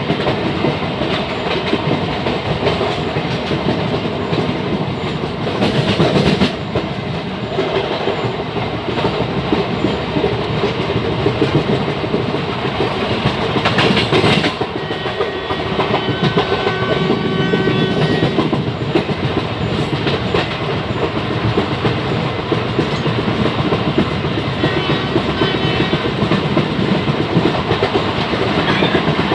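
Express train coaches running at speed, heard through an open window: a steady rush of wheel and track noise with a clatter over the rail joints. The noise swells briefly about six seconds in and again about fourteen seconds in, as the train runs through a station.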